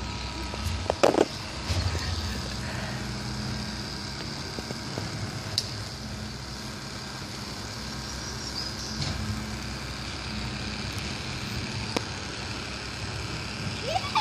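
Battery-powered toy bubble machine's small motor running with a steady low hum, with a couple of short thumps about a second in.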